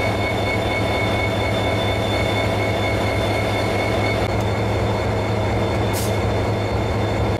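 C-class diesel-electric locomotive idling at a standstill: a steady low engine hum with a thin, steady high-pitched whine over it.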